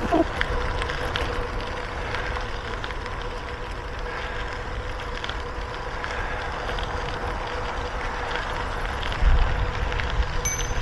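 Wind rushing over the microphone and tyre and road noise from a bicycle ride, steady throughout with a faint hum, and a stronger gust of low rumble about nine seconds in.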